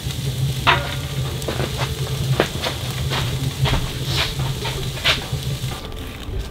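Wood fire crackling and popping in a woodstove: a steady hiss broken by irregular sharp pops, over a low steady hum. The crackle dies away shortly before the end.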